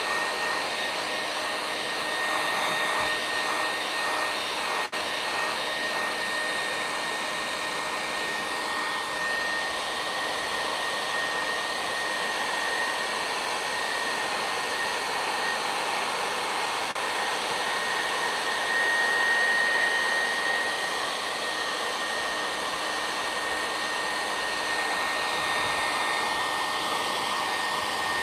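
Handheld Conair hair dryer running steadily: a constant rush of air with a steady high whine from its motor, drying fresh spray paint on a stencilled canvas. It swells slightly louder about two-thirds of the way through.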